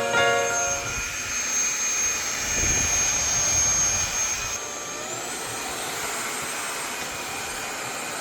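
LG A9S cordless stick vacuum motor running with a steady rushing noise and a high whine. About four and a half seconds in, the whine rises in pitch and the sound gets a little quieter.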